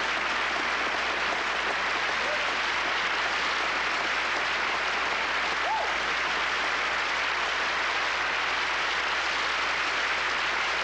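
Audience applauding steadily, a dense, even clapping with no break.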